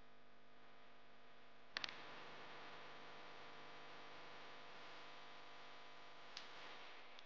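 Quiet handling of a small die-cast metal model car by gloved hands, over a steady low hum. A quick cluster of three small clicks comes about two seconds in, and another click comes near the end.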